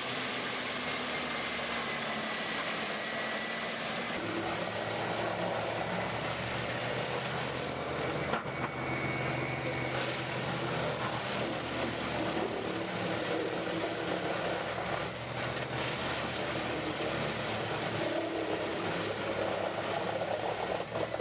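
Morbark 30RXL wood chipper running steadily as it takes in and chips logs: a continuous heavy engine and chipping noise.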